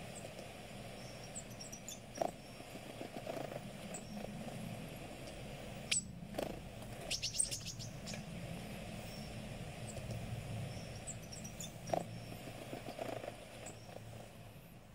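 Faint bird chirps and tweets from a video for cats playing on a screen, over a steady low hum, with a few soft clicks.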